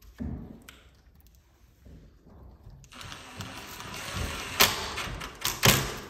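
Light knocks of handling the lock in the door, then a cordless drill-driver running for about three seconds as it drives a screw through the mortise lock's faceplate. Two sharp clicks come near the end.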